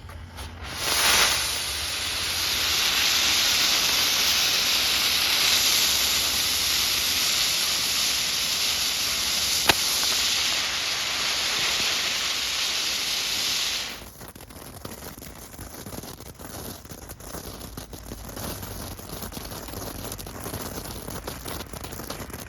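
Dragon Boat novelty ground firework burning, spraying sparks with a loud steady hiss for about thirteen seconds, then cutting off suddenly. A single sharp click comes about ten seconds in.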